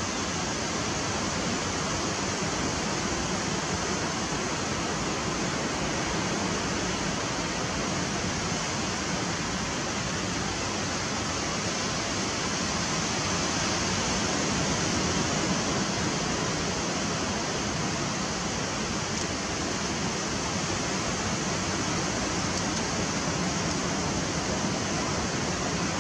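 Ocean surf and wind at the shoreline, heard as an even, unbroken hiss with no separate wave crashes standing out.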